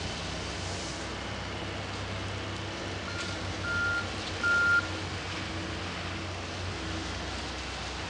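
Heavy diesel construction machinery running with a steady low rumble. About three seconds in, a backup alarm beeps three times, the first faint and the last two louder.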